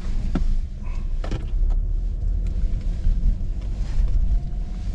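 A car running on the road: a steady low rumble, with a couple of light knocks in the first second and a half.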